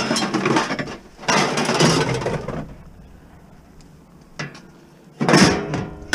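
Scrap being handled and tossed: four short bursts of clattering and rubbing a second or so apart. The last and loudest comes as a speckled enamel roasting pan goes into a plastic tub.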